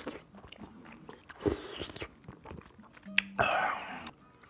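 Close-up eating sounds: chewing and crunching a mouthful of kimchi. About three seconds in there is a sharp click as a spoon goes into the soup pot, followed by a brief burst of noise.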